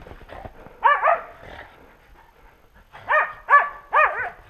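Hunting dog barking at game, typical of a dog baying a wild boar for the hunter: a quick pair of barks about a second in, then a run of four barks from about three seconds in.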